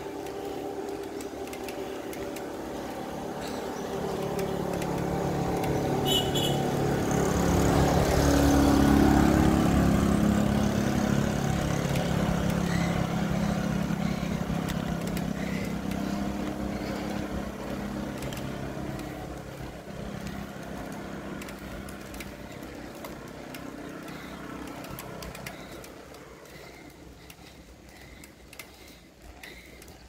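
Engine of a motor vehicle passing on the road. It grows louder to a peak about nine seconds in, then fades slowly over the next fifteen seconds or so as it moves away.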